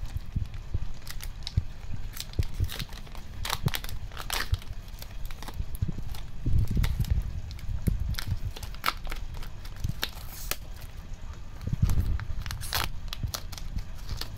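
Stiff plastic trading-card booster pack wrappers and cards being handled, crinkling with irregular sharp crackles and clicks and a few soft bumps.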